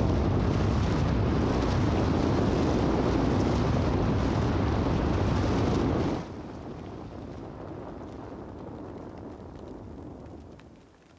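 Avalanche coming down a mountain slope: a loud, deep rumbling rush that drops off abruptly about six seconds in, leaving a quieter rushing that fades away near the end.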